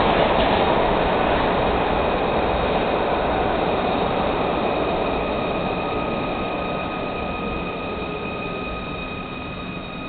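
1982 Kawasaki B-IV subway car's running noise inside the car as it decelerates into a station: the rumble of wheels and motors fades steadily, and a steady high-pitched whine comes in about halfway through as it slows.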